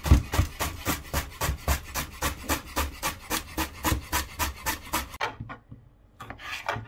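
Chef's knife rapidly chopping fresh parsley on a cutting board: fast, even strokes, about five a second, each knocking on the board, stopping about five seconds in. A few separate knife cuts follow near the end.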